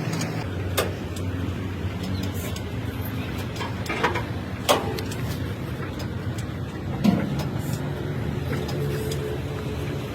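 An engine running steadily with a low drone, with a few sharp metallic knocks over it, two of them loud, near the middle and about two-thirds of the way in.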